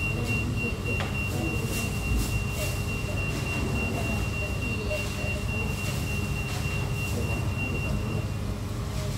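A steady high-pitched electronic tone, held without a break and stopping about eight seconds in, over the low hum and murmur of a busy fast-food dining room.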